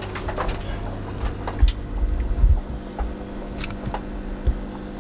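Steady low electrical hum of fish-room equipment, with a cluster of low thumps and knocks from handling between about one and a half and two and a half seconds in, and a single sharp knock near the end.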